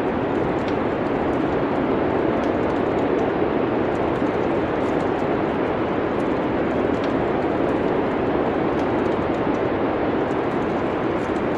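Steady wind noise of a winter snowstorm, even and unchanging, with faint, sparse crackles of a wood fire ticking over it.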